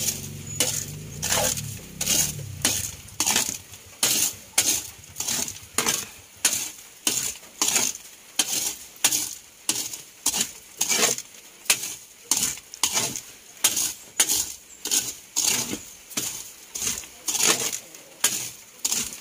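A spatula scraping and stirring dry corn kernels around a large metal wok in steady strokes, about three every two seconds, the kernels rattling against the pan as they roast.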